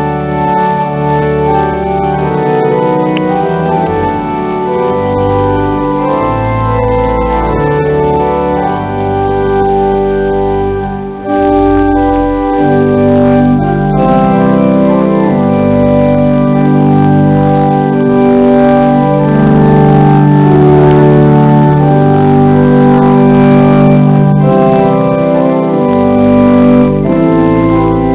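Cathedral pipe organ playing sustained full chords over a deep pedal bass. It breaks off briefly about eleven seconds in, then comes back louder and fuller.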